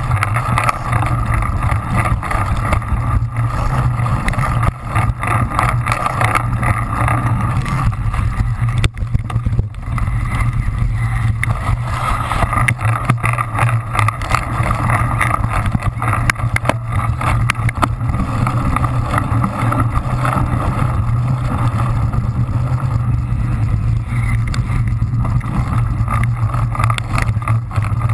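Wind rushing over the microphone of an action camera mounted on a cyclocross bike racing on a dirt and sand course, with constant rattling and knocks as the bike bounces over the rough ground.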